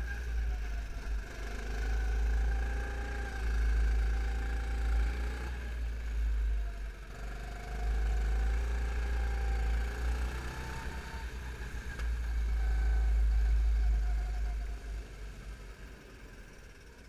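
Rental kart's engine heard onboard over a heavy low rumble, its pitch rising and falling in several surges as it accelerates and backs off through the corners. The sound falls away near the end.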